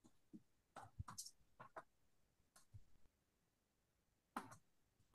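Near silence, broken by a handful of faint, short clicks and taps at irregular moments.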